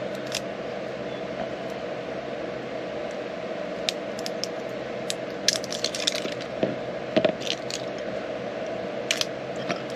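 Scattered light clicks and taps of small parts being handled in a multimeter's opened battery and fuse compartment, over a steady background hum.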